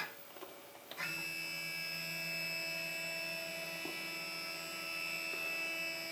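CNC plasma cutter's stepper motor whining steadily at one pitch while jogging the torch head across the gantry. The whine starts about a second in.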